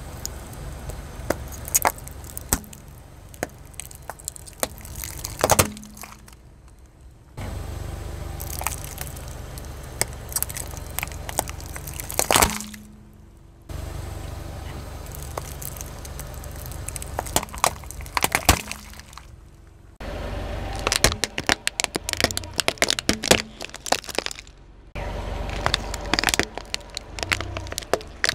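Car tyre rolling over brittle objects and crushing them: a run of sharp cracks and snaps over a low rumble. The sound comes in several short takes that cut abruptly from one to the next, with the biggest cracks about five and a half and twelve and a half seconds in.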